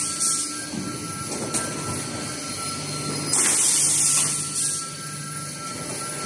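Sheet-metal cut-to-length line running: a steady machine hum with a thin whine. A loud hiss lasts about a second, a little over three seconds in, with a shorter one near the start.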